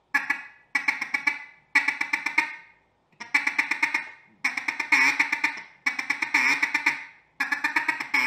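Mallard duck call blown in a feed chuckle, the air cut off by the tongue into fast 'ticka ticka' ticks. It comes as seven short runs, each under about a second and a half, with brief pauses between.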